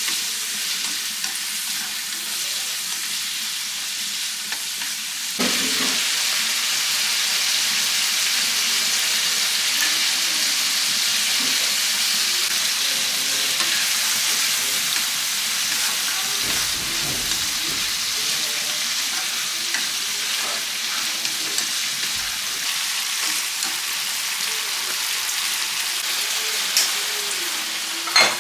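Food sizzling in a hot pan, a steady frying hiss that gets louder about five seconds in, with a couple of light clicks near the end.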